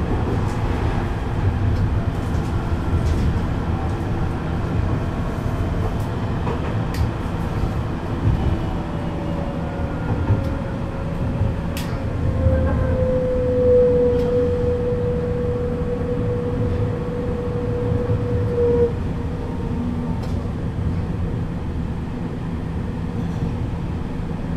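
Duewag R1.1 tram running between stops, heard from inside the passenger compartment: a steady low rumble from the wheels and running gear. A motor whine comes in about a third of the way through, sinks slowly in pitch and stops about three quarters of the way in, and there are a few sharp clicks.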